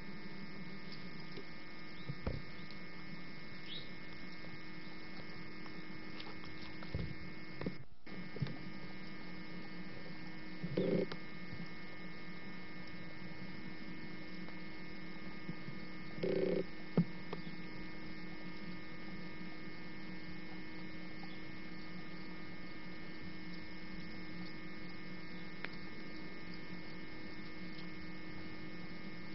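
Steady electrical hum made of several fixed tones, running unchanged, with a few faint brief knocks and a short drop-out about eight seconds in.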